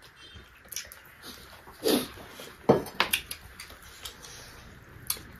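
Eating by hand: chewing and wet lip smacks as rice and chicken gizzard are eaten, with a few sharp smacks about two and three seconds in, and fingers squishing rice on a banana leaf.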